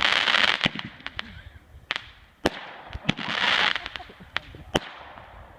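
New Year's Eve fireworks going off: a string of sharp single bangs spread out, with two longer crackling bursts, one at the start and one about three seconds in.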